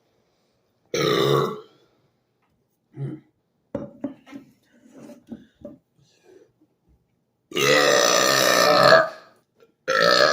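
Loud human burps brought up by gulping a fizzy drink: a short one about a second in, softer short sounds between about 3 and 6 seconds, then a long, drawn-out burp near the end and another beginning just before it stops.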